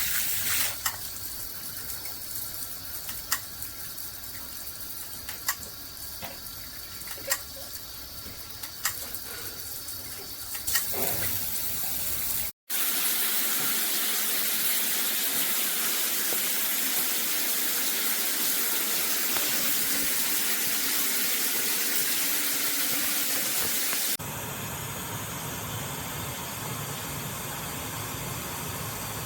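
Cobbe handheld filtered shower head running, water spraying with a steady hiss; the head gives a whistle that the owner's old shower head did not make. The spray sound changes abruptly twice, with brief sharp ticks every couple of seconds in the first part.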